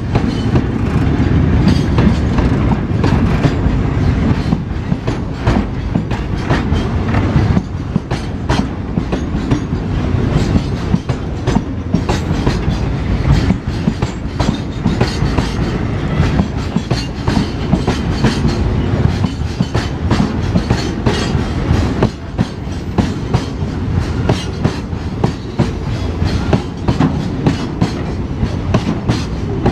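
Crude-oil tank wagons of a freight train rolling past close by: a steady low rumble with a continual clickety-clack of wheels over the rail joints.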